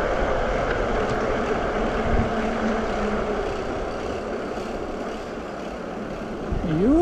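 Wind rushing over the microphone and tyre rumble from a bicycle being ridden, easing off a little after the middle. Near the end a short loud tone rises and then falls in pitch over about a second.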